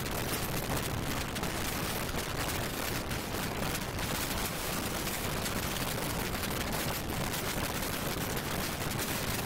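Train running: a steady rumble and hiss with a dense, rapid rattling and clicking throughout.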